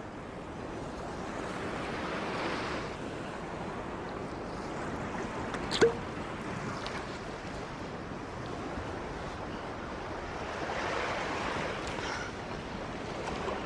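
Surf washing onto a beach, swelling and easing twice, with one short, sharp knock about six seconds in.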